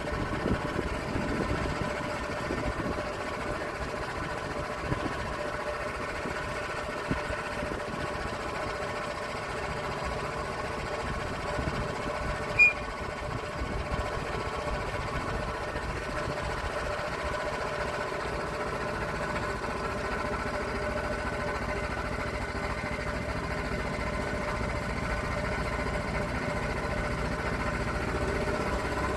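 Log-milling saw's engine running steadily under load as it saws through an oak log, with a fast, even pulse. A single sharp tick stands out about halfway through.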